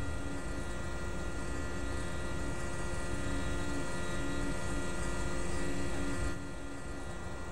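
Steady machine drone with several constant high whining tones and a lower hum that wavers on and off; it drops abruptly in level about six seconds in.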